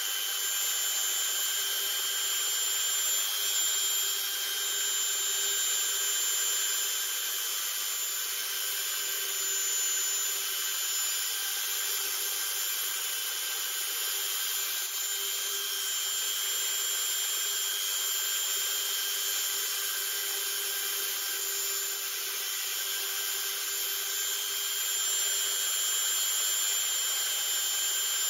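Handheld rotary multitool (Dremel-type) running with a steady whine, its small bit carving fine detail into the corners of a wooden panel.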